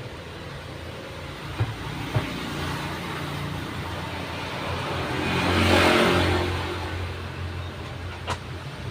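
A motor vehicle passes by over a steady background of traffic. Its engine and road noise grow to a peak about six seconds in, then fade. A few sharp clicks are heard, one near the start and one near the end.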